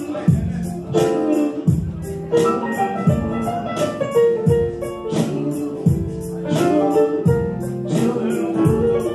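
Live band music: a keyboard playing chords over bass and drums, with a steady high percussion tick several times a second.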